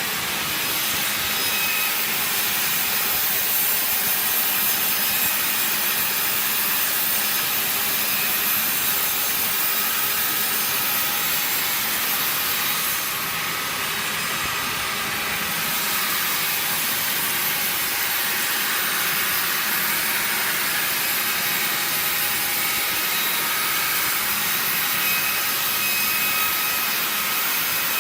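Sawmill machinery with its saw cutting timber: a steady, high hissing whine with a slight dip about halfway through.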